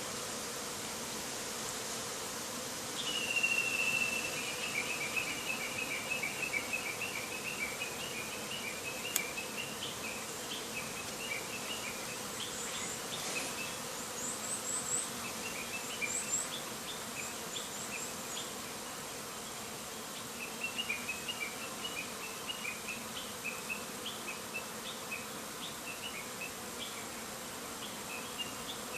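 Japanese honeybees buzzing in a dense, steady hum as they fly agitatedly around the hive entrance. This is a panicked reaction that the keeper puts down to bonfire smoke drifting onto the hive. About three seconds in, a bird begins calling in runs of short high chirps that come and go.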